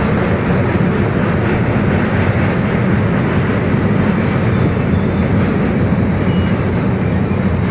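Steady rumble of a train in motion, wheels running on the rails, heard from aboard a moving train.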